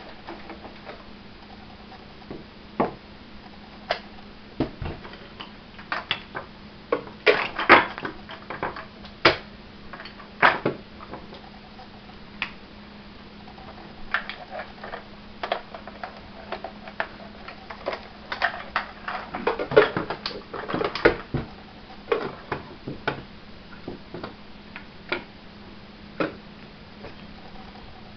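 Irregular clicks and light knocks of hard objects being handled and set down on a table, in clusters, over a steady low hum.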